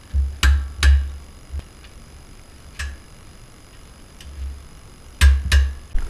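Click-type torque wrench clicking on the front hub/unit bearing mounting bolts as each reaches its set 75 ft-lb torque. There are two sharp clicks about half a second in, one near three seconds and two more near the end, each with a dull low knock.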